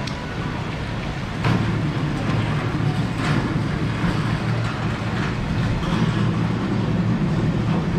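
Propane turkey-fryer burners running with a steady low rumble that grows louder about a second and a half in, with a couple of short knocks.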